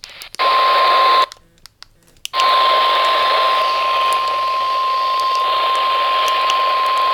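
NOAA weather radio warning alarm tone, a single steady 1050 Hz tone over radio static, heard from a weather radio receiver during the weekly test. It cuts out for about a second, with a few clicks, about a second in, then holds steady.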